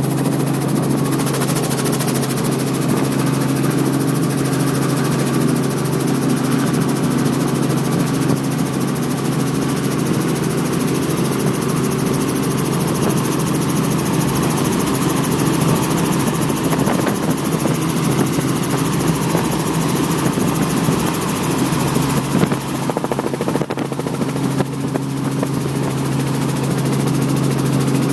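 Light aircraft's engine running with a steady drone, heard from inside the cabin during the takeoff run and climb-out; it eases slightly about 22 seconds in and then picks up again.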